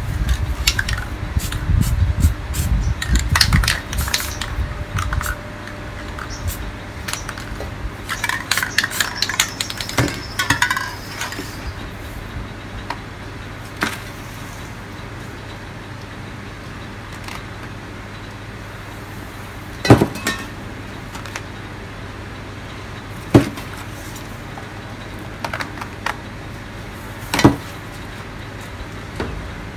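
Spray cans and round stencil lids being handled on a painting board: scattered clinks and knocks, a short spell of aerosol spraying about a third of the way in, and three sharp knocks later on as the lids are set down and lifted.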